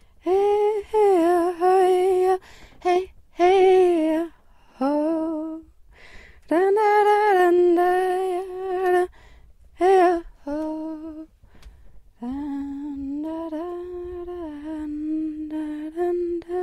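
A single voice humming a slow wordless melody in short phrases with pauses between them, then a longer unbroken phrase from about twelve seconds in.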